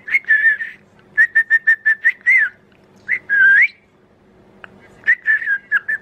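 Budgerigar chirping: a fast run of short chirps at one pitch, then longer warbled notes that dip and rise, with a pause before another quick run near the end.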